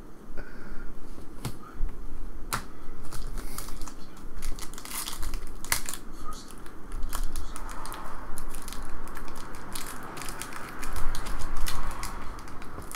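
Foil trading-card pack wrapper crinkling and tearing as it is ripped open by hand, with scattered sharp crackles and a longer rustling stretch near the end.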